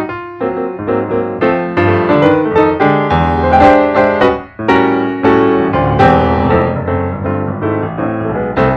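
Background piano music: a quick, steady stream of notes over low chords, with a brief pause about four and a half seconds in.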